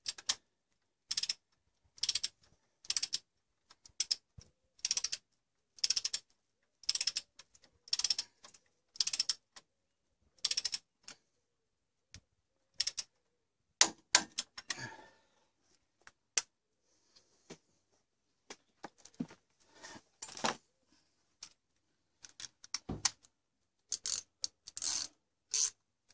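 Socket ratchet clicking in short bursts, about one stroke a second, as brake caliper bolts are wound in. A few louder tool clunks come about halfway through and again later.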